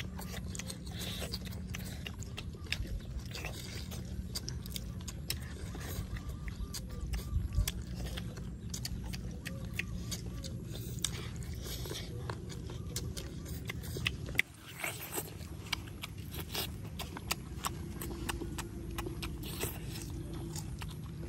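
People eating crispy fried chicken thighs with their hands: scattered crunchy bites, chewing and mouth smacks over a steady low hum.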